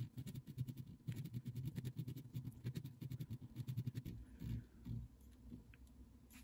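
Heritage Arms Cold Shot M.O.A.B. adjustable scope base being cranked up in elevation: a quick run of small detent clicks for about four seconds, then a few single clicks.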